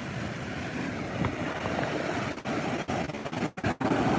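Ocean surf breaking, with wind buffeting a phone's microphone. The sound cuts out briefly twice about three and a half seconds in, as the phone is moved.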